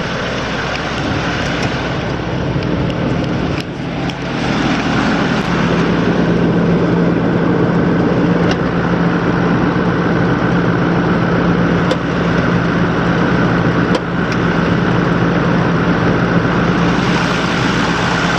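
2008 Ford F350 Super Duty's 6.4L V8 turbo diesel engine running steadily at idle, getting louder about four seconds in, with a few light clicks.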